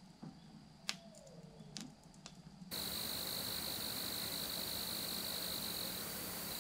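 A few faint handling clicks and knocks. Then, about two and a half seconds in, a steady chorus of crickets starts, holding one unbroken high trill over a constant hiss.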